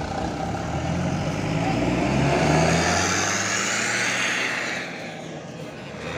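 Tour bus pulling out and driving past with its engine accelerating. The sound builds to its loudest about two and a half seconds in and dies away about five seconds in.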